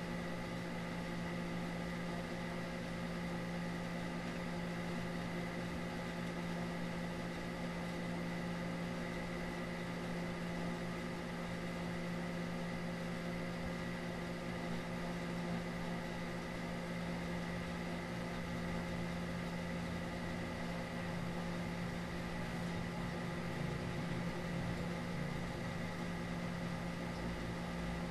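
Steady hum and hiss: a low drone with a fainter high whine above it, holding the same pitch and level throughout.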